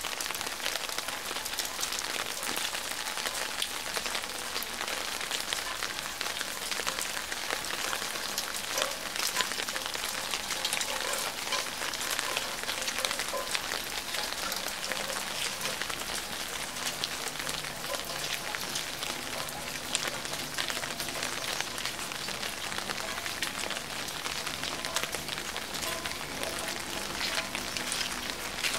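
Steady rain falling, with many sharp individual drops hitting close by.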